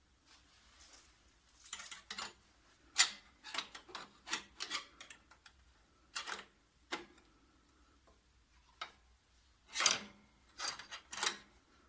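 Metal parts of a copier clicking, knocking and scraping irregularly as a sheet-metal main board mounting bracket is fitted and its screws are set.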